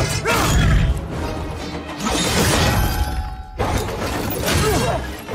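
Action-film fight mix: dramatic score under a run of crashing hits and smashes from the blows, with a sudden loud hit about three and a half seconds in.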